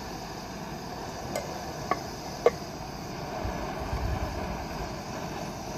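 Steady hiss of a portable gas burner under an enamel cooking pot, with a few sharp clinks of a wooden spoon and the enamel lid against the pot, the loudest about two and a half seconds in, then a dull knock and rustle as the lid is set on.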